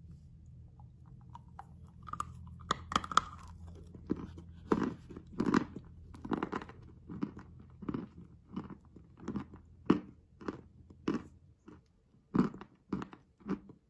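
Chalk candy being bitten and chewed close to the microphone: a regular run of crisp crunches, about one to two a second, after a few lighter clicks at the start.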